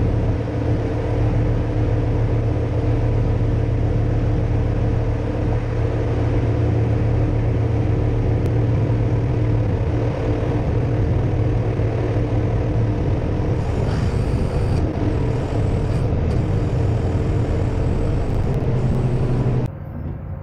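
Crane truck's engine running steadily with a low hum, powering the knuckleboom crane as it holds a load. It stops abruptly near the end.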